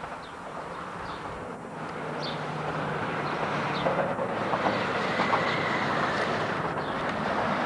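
Traffic crossing the highway bridge overhead: a rushing vehicle noise that grows steadily louder, with a faint hum and tyre whine in it.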